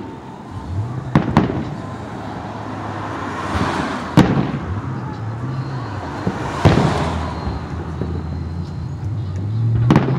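Aerial firework shells bursting in a display: about five sharp bangs, the loudest about four seconds in, with a hiss of crackling between them.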